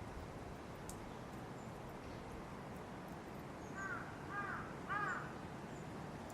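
A crow cawing three times in quick succession a little past the middle, over a steady rush of strong wind through leafy trees.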